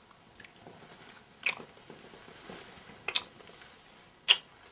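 Kissing: lip smacks about once every second or so, one of them doubled, the loudest near the end.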